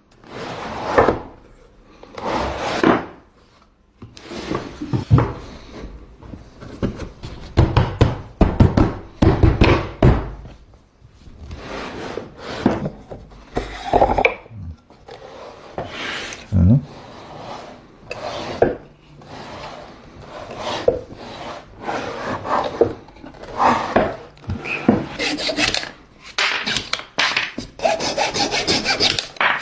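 Hand tool working wood in repeated rasping, sawing strokes. The strokes are uneven at first, then quicker and steadier back and forth near the end.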